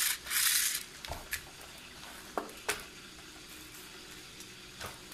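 A plastic Beyblade ripcord launcher: a harsh zipping rasp for under a second as the toothed ripcord is run through it, then a few light plastic clicks as the top is handled and fitted.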